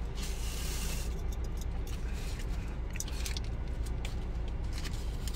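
Paper wrapping crinkling and rustling as a tightly packed, string-tied food parcel is pulled open by hand, with a burst of hiss in the first second, over a steady low hum from the car.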